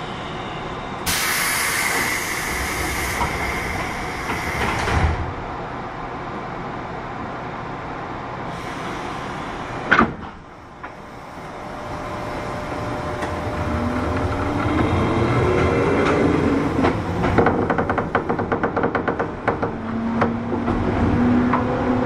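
JR West 201 series electric train at a station: the sliding doors close with a hiss of air lasting about four seconds and ending in a thud, and a sharp knock follows about ten seconds in. The train then pulls away, its thyristor chopper control and traction motors whining in tones that rise in pitch as it picks up speed, with the running noise growing toward the end.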